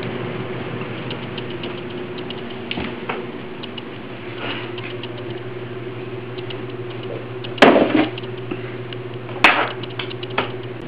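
A cardboard case of beer and other items being set down on a kitchen counter: two loud knocks about two seconds apart near the end, then a smaller one, over a steady low hum and light footstep-like clicks.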